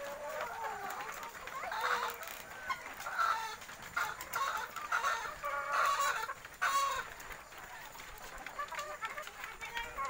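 A flock of caged white chickens clucking and calling, many voices overlapping, louder through the middle.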